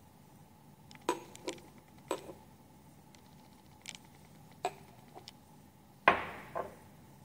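Hard kitchenware being handled and set down: a scattered series of sharp clinks and knocks, the loudest about six seconds in with a brief ring after it.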